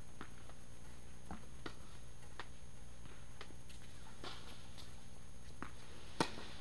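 Tennis ball struck by a racket with a single sharp pop about six seconds in, the loudest sound. Fainter ball bounces and distant hits come before it, over a steady background hum.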